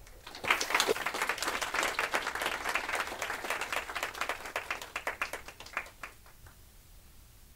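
Audience applauding: a round of clapping that starts about half a second in, thins out, and dies away with a few last claps about six seconds in.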